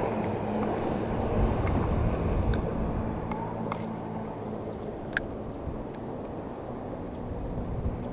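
Motorboat engine running at a distance, a low hum that fades after about four seconds, over a steady rush of wind. A few short, sharp clicks stand out above it.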